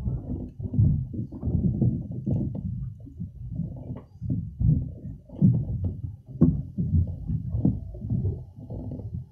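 Wind buffeting the microphone: an irregular low rumble that swells and drops in gusts.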